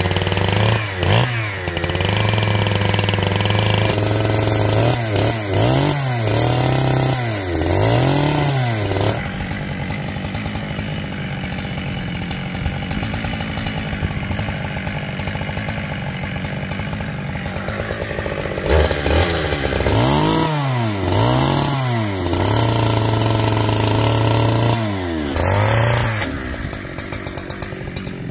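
Chainsaw running at high revs, its pitch dropping and picking back up several times, with a steadier, somewhat quieter stretch in the middle.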